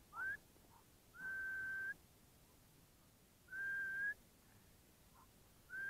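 A man whistling a few notes: a short rising note, two long held notes, and a last note that rises and then falls near the end.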